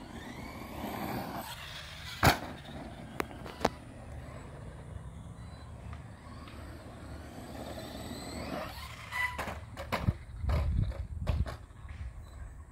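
Arrma Outcast electric RC stunt truck running over dirt jumps, its motor whine rising and falling with the throttle. There is a sharp knock a couple of seconds in as it lands, two smaller knocks soon after, and a run of knocks and clatter near the end as it bounces over the humps.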